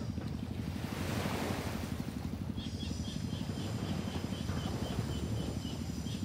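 Wind buffeting the microphone over waves washing on the shore, with a swell of wash about a second in. From about two and a half seconds, a faint run of short high chirps repeats about three times a second.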